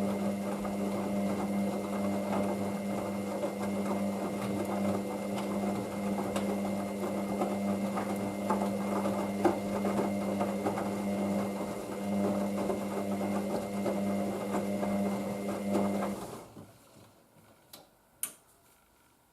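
Hoover DYN9144D3X washing machine running its 30 °C main wash: a steady motor hum over a busy rattle, which stops about 16 seconds in, followed by a couple of faint clicks.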